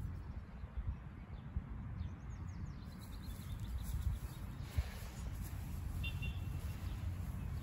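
Outdoor ambience: a low wind rumble on the microphone, with a few faint bird chirps about two seconds in and again near six seconds.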